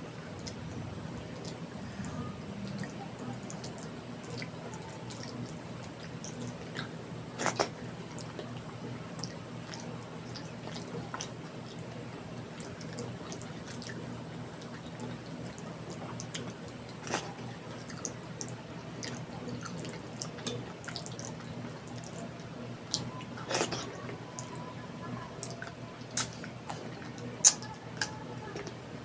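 Wet, sticky eating sounds of soft spicy khichdi and egg curry: scattered short clicks and smacks from mouth and food, a few louder ones near the end, over a steady low hum.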